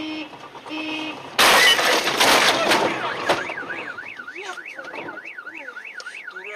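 Car horn blown twice in short blasts, then a loud crash of a collision about a second and a half in, with a smashing sound. A car alarm then starts warbling up and down about three times a second.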